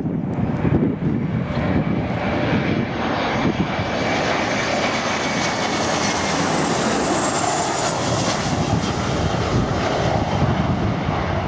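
Airliner on final approach passing low overhead. Its engine noise swells and is loudest around seven seconds in, with a high whine over the rush. Wind buffets the microphone at the start.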